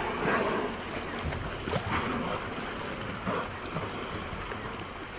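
Wind on the microphone and sea noise aboard a small boat, with a few short rushing bursts, the strongest right at the start, as killer whales surface and blow close by.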